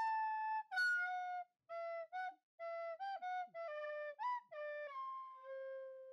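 Music: a solo flute-like melody of short separate notes with brief gaps, ending on a long held low note.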